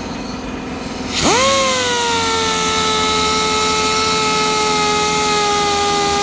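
Random orbital sander working on the sheet metal of a car's engine bay. About a second in it speeds up with a quick rising whine, then holds a steady whine that sinks slowly in pitch as it bears on the panel.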